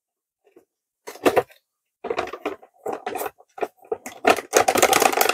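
Cardboard box being opened by hand: its end flap scraped and pried open, with crinkling of the cardboard and plastic packaging inside, in quick irregular bursts. It starts about a second in and is busiest near the end.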